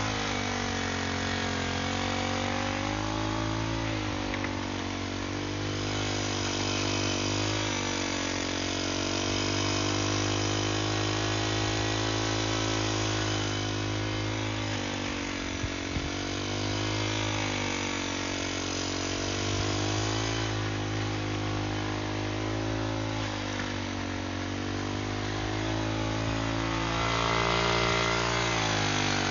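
Brush cutter's small engine running under load as its tiller-style mixing wheel churns cement and small stones into soil, the engine speed rising and dipping again and again and running louder near the end.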